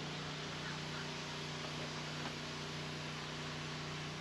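Engine of the tow vehicle running with a steady low hum as the trailered boat is backed down a launch ramp, under a steady hiss.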